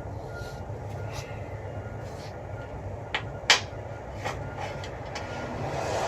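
Scattered light clicks and knocks of metal door hardware being handled, with one sharp click about three and a half seconds in, over a steady low hum.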